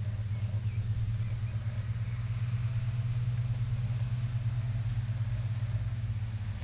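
A steady low rumble, like a motor running, with even loudness throughout.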